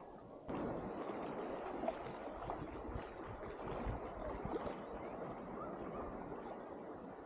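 Sea water splashing around a swimmer moving through it, starting suddenly about half a second in.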